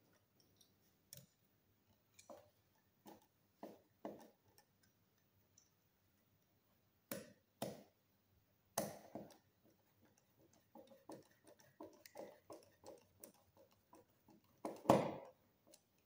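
Screwdriver and wire clicking against the terminal screws of a small magnetic contactor as a wire is fastened onto a terminal: scattered irregular clicks, a quick run of light ticks in the second half, and a louder knock near the end.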